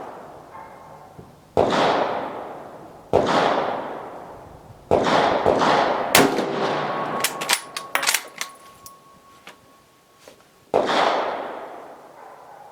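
Brazilian M1908/34 bolt-action rifle in .30-06 firing four shots, each followed by a long echoing decay. The first three come about a second and a half apart. A run of sharp metallic clicks follows the third shot as the bolt is worked, before the fourth shot near the end.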